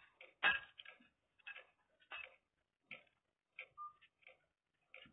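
Spoon and fork clicking and scraping against a plate of rice while eating: a series of short, light clicks about one to two a second, with a brief ringing note about three-quarters of the way in.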